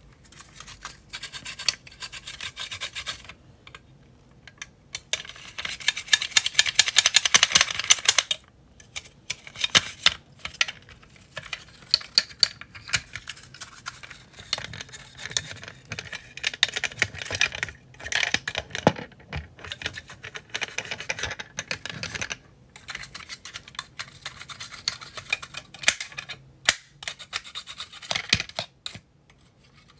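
A small brush scrubbing a soapy toy car's body in quick back-and-forth strokes, in spells with short pauses; the longest and loudest spell comes about five to eight seconds in.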